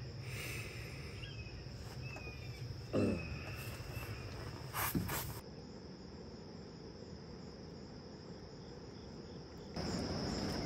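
Steady high-pitched chorus of crickets, with two brief knocks about three and five seconds in.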